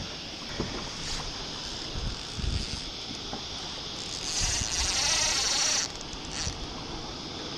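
Open-water ambience around a kayak: a steady hiss with a few soft knocks. About four seconds in, a loud rushing, rubbing noise from the camera being handled lasts nearly two seconds and cuts off suddenly.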